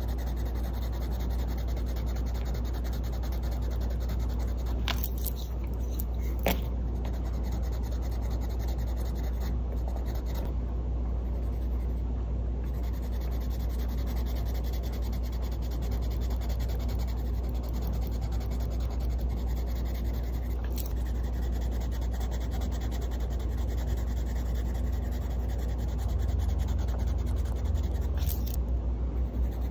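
Caran d'Ache Luminance coloured pencil scribbling swatches on paper: a steady scratchy rubbing of the lead, with a few sharp ticks, over a steady low hum.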